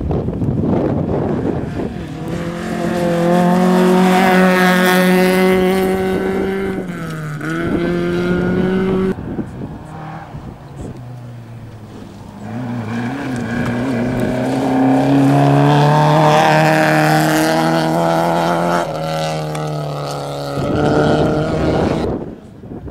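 Rally cars on a gravel stage passing one after another, each engine revving hard with its pitch rising and dropping at gear changes.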